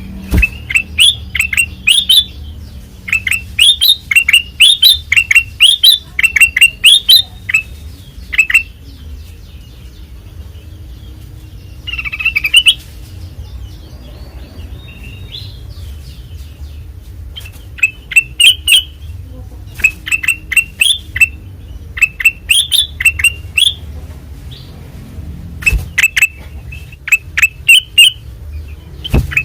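Kutilang emas bulbul singing in loud bursts of quick, clear, falling notes, phrase after phrase with short pauses and a longer lull in the middle. There is one harsher call partway through, over a steady low hum.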